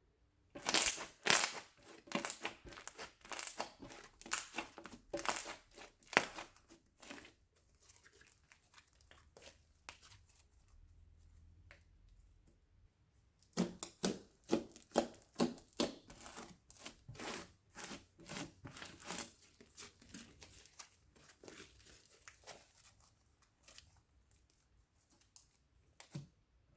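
Slime being mixed and squeezed, giving quick runs of sticky crackling pops and clicks in two bouts with a pause between.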